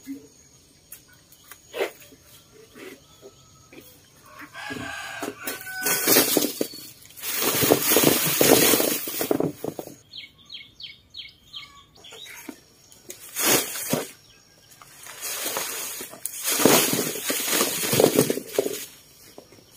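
A rooster crowing twice, each crow long and loud, with short bird chirps between them.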